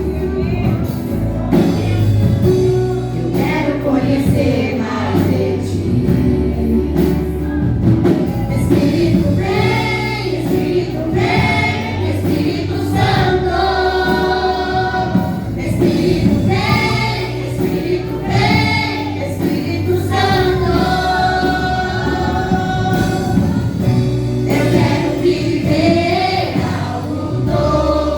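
Gospel worship song: a group of voices singing held, wavering notes together over steady instrumental accompaniment.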